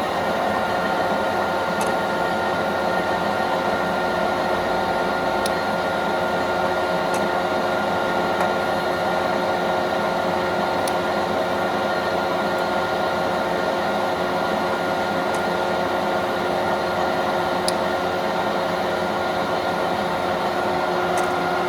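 Tarnow TUJ50M lathe running steadily under power: an even mechanical hum made up of several held tones, with a few faint ticks.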